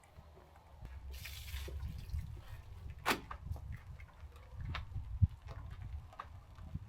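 Water dripping, with a short hiss about a second in and a sharp click about three seconds in, over a low rumble.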